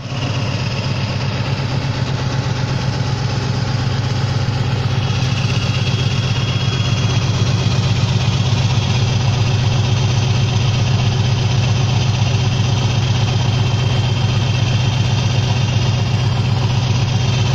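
Scania R560's V8 diesel engine idling steadily, heard close to its side-exit exhaust tailpipe.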